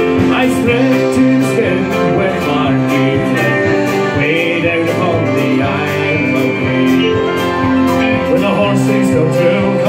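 Live folk band playing: accordion, strummed acoustic guitar and keyboard, with held notes over a steady beat.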